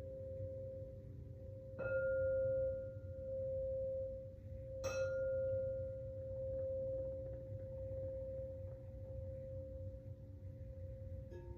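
A singing bowl struck twice, about two and five seconds in, each strike ringing on in a long, steady tone. Near the end a second, lower-pitched bowl is struck.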